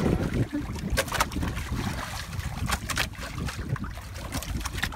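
Wind buffeting the microphone over choppy sea around a small boat, with a few sharp knocks about one and three seconds in.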